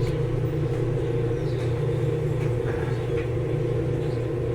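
A steady low mechanical hum runs throughout, with a few faint light taps and clicks over it.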